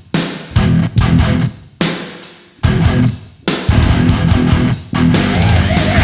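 Background heavy rock music with electric guitar: loud, sharply struck chords that die away, then steadier playing near the end.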